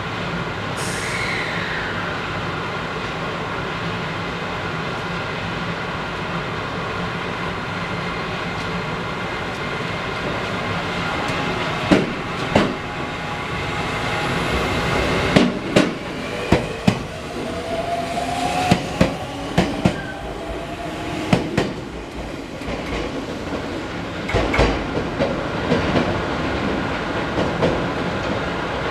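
E491 series East i-E electric inspection train pulling out past a platform, a steady running hum with tones that slowly rise in pitch as it gathers speed. From about twelve seconds in, its wheels clack sharply over the rail joints, a dozen or so uneven knocks that thin out near the end.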